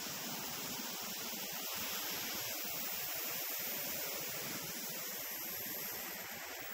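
Steady rush of wind over the 360 camera's microphones during wingsuit flight, an even noise with no change in level.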